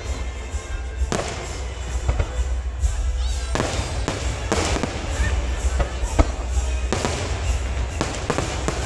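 Aerial fireworks shells bursting overhead, a sharp bang roughly once a second with crackle between, and a brief whistle about three seconds in. Music plays underneath.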